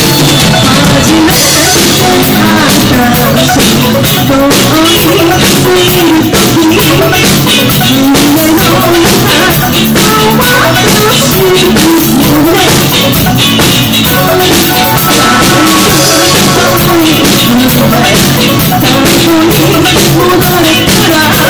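Live rock band playing loudly: drum kit and electric guitar with a woman singing lead into a microphone over them.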